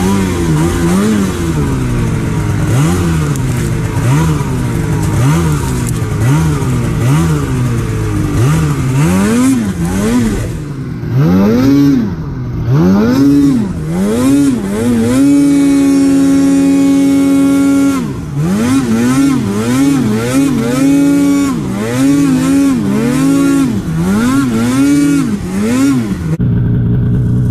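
Two-stroke mountain snowmobile engine revved up and down in quick repeated throttle bursts while riding in deep powder. About halfway through the revs are held high and steady for about three seconds, then the bursts resume and it settles to a lower steady note near the end.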